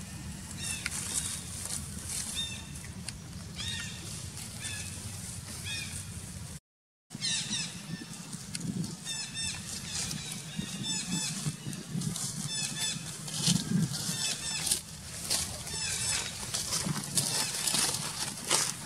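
Short, high-pitched animal chirps repeated many times in quick clusters, over a steady low hiss. The sound drops out for half a second about a third of the way in.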